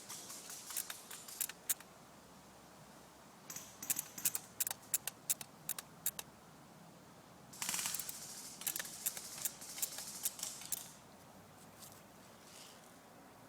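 Dry leaves and brush crackling and rustling underfoot, in three bursts of irregular sharp clicks with pauses between.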